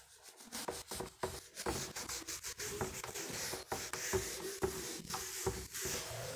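Whiteboard duster rubbed over a whiteboard in quick back-and-forth strokes, wiping the writing off.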